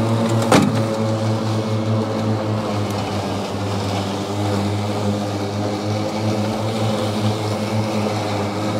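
EGO 52-inch battery-powered riding mower running steadily as it cuts thick, wet, tall grass, with an even, constant drone. A single sharp knock sounds about half a second in.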